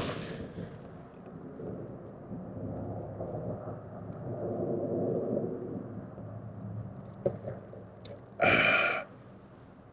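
A person drinking, with muffled sipping and swallowing noises and a click at the start, then a short voiced 'mm'-like sound of reaction near the end.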